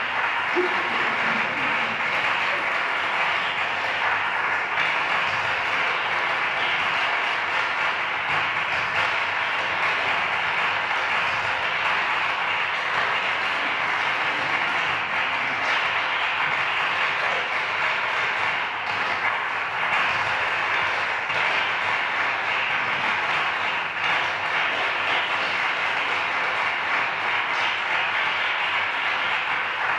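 Steady, dense crackling noise with no pitch or beat: an electronic noise texture played through a loudspeaker.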